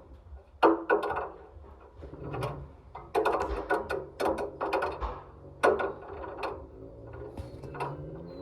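Irregular knocks and rattles of a ball tumbling inside a turning washing machine drum, with several loud hits. A steady motor hum sits underneath.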